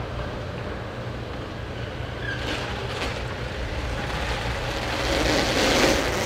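A car rolling slowly forward: a steady low engine rumble, with a rush of noise that swells up about five seconds in.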